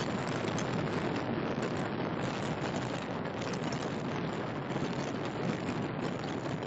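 Steady rushing hiss of rough sea surf washing against the shore, with wind.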